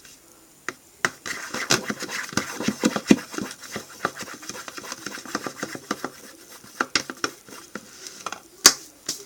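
A pencil stirring a slime mixture in a plastic bowl: a quick run of scraping and tapping, with one sharper knock near the end.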